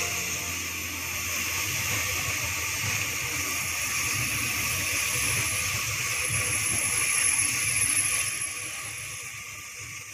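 Loaded coal hopper wagons of a long freight train rolling past: a steady rush of steel wheels on the rails over a low rumble, falling off somewhat near the end.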